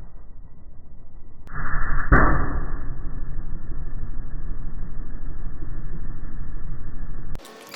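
Straight-piped truck exhaust running with a low, muffled rumble, and about two seconds in a sharp bang as a glitter-filled balloon on the tailpipe bursts. The rumble cuts off suddenly near the end.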